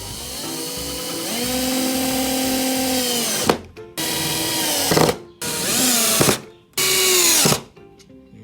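Electric drill/driver driving screws to fix the desk frame to a particle-board tabletop. It makes one long run that spins up, holds and winds down, then three short bursts.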